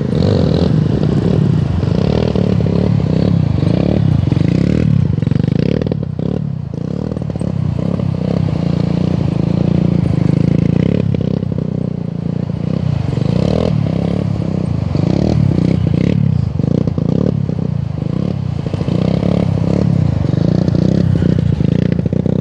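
Kawasaki KLX150 dirt bike's single-cylinder four-stroke engine running hard and revving up and down in swells as the rider holds wheelies, with scattered short clatters.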